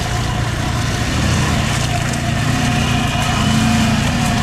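Car engine running under load over a steady low rumble; its pitch rises a little past the middle.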